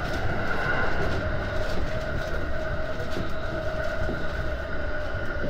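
Tokaido Line electric commuter train running, heard from inside the passenger car: a steady low rumble with a steady two-note whine and faint clicks.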